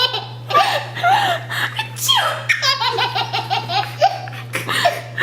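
Baby laughing hard in repeated bursts of quick, pulsing giggles, with a sharp sudden sound about two seconds in just before the longest laughing run.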